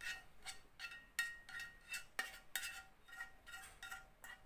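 A metal spoon stirring in a pot, clinking against the side about three times a second, each clink ringing briefly.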